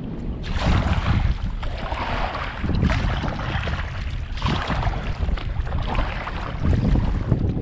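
Wind buffeting the microphone with a low rumble, and water splashing against a kayak in surges every couple of seconds.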